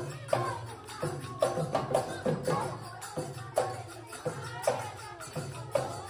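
Background music with a percussion beat and a melody line over it.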